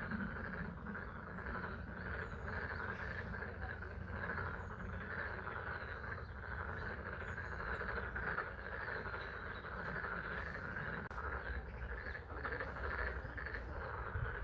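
A dense chorus of many frogs calling together without a break, their calls packed in one steady band of pitch, over the steady hiss of spring rain on a pond and a low rumble.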